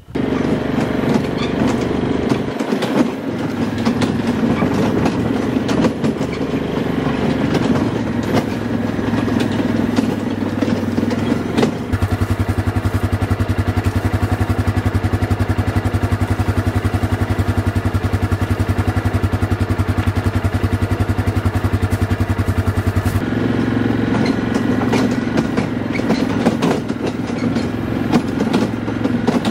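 ATV engine running while ridden, dropping to a steady, evenly pulsing idle for about ten seconds in the middle while the machine stands parked, then pulling away again.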